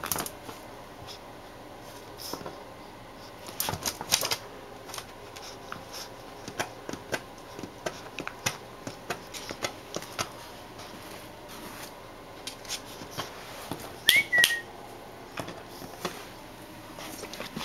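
Beagle puppy's paws and claws tapping and scratching against a mirror in scattered, irregular clicks. There is a louder flurry of knocks about three-quarters of the way through, with a short high squeak.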